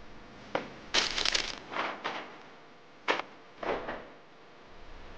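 Handling noises: a few short bursts of rustling and crinkling with a couple of sharp clicks, as a picture frame and the things beside it on the bed are picked up and moved.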